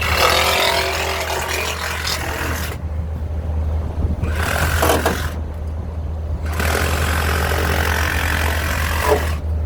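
Angle grinder working steel in three bursts, the second and third ending as the disc's pitch falls, over a steady low engine hum.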